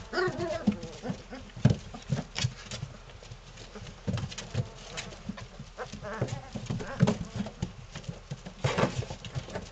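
Three-week-old Belgian Malinois puppies play-fighting: a busy string of short low growls broken by brief high yips and squeals, with a thump a little under two seconds in.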